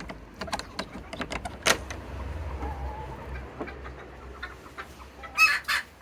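Serama bantam chickens clucking, with scattered sharp clicks and knocks, and a loud harsh call about five and a half seconds in.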